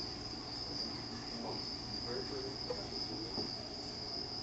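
A steady high-pitched whine, even and unbroken, over a faint low hum.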